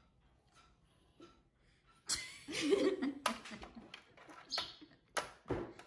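A woman laughing in several bursts, starting about two seconds in.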